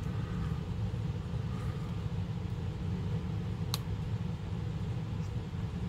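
Steady low background hum, with a single sharp click of hard plastic model parts being pressed together a little under four seconds in.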